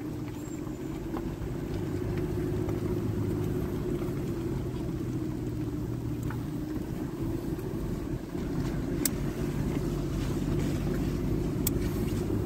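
Steady hum of a vehicle's engine and tyres heard from inside the moving vehicle, with a little wind on the microphone. Two sharp clicks come near the end.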